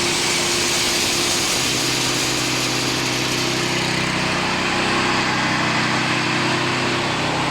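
Wood chipper driven by a 20 hp Lifan petrol engine, running steadily with a loud rushing noise over the engine drone. The engine note shifts about a second and a half in.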